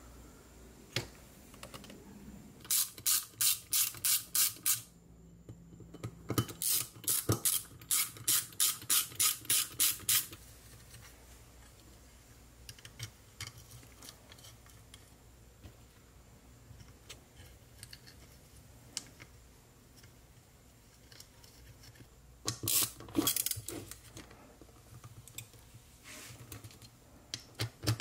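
Hand ratchet wrench clicking in quick, even runs of about four clicks a second: two runs in the first ten seconds and a shorter one late on, with quiet between.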